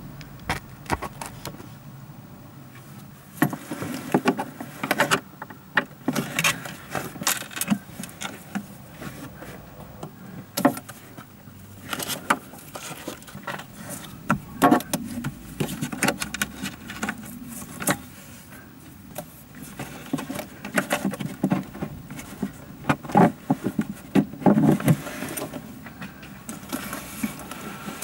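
Irregular clicks, knocks and small metallic rattles of tools and parts being handled during repair work on a car's heater blower resistor connector.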